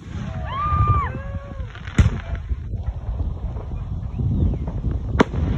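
Aerial fireworks going off, with two sharp bangs about two seconds and five seconds in.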